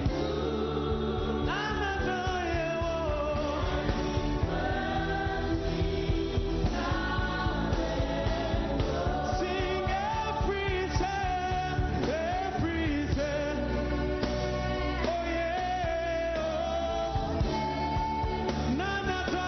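Gospel worship song sung by a group of singers with instrumental accompaniment, the sung melody gliding and held over a steady low backing.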